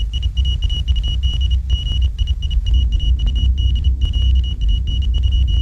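Aerodrome alarm bell ringing continuously, a high steady ring broken now and then by brief gaps: the signal that the airliner has been sighted. A heavy low rumble runs underneath.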